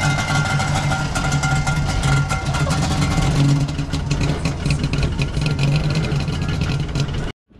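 Two-stroke engine of a lowered Trabant running as the car drives off, a steady low note with rapid rattling ticks over it. The sound cuts off suddenly near the end.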